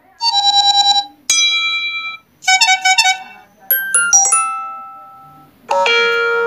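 A Samsung Galaxy J5 (2016) phone playing previews of iOS-style notification tones, one after another, as each option in its notification-sound list is selected. There are five or six short chimes and jingles, each different, and several are cut off abruptly when the next one starts.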